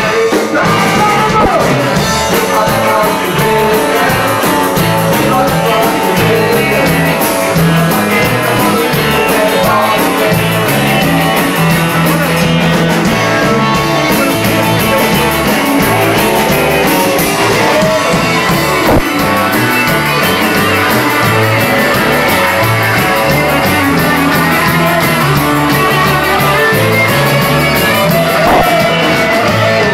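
Live blues band playing: electric guitars, bass guitar and drum kit, with a steady beat.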